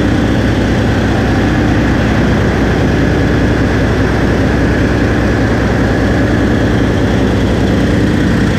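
Caterpillar C18 electronically injected inline-six marine diesel idling steadily at about 600 rpm under light load, still cold.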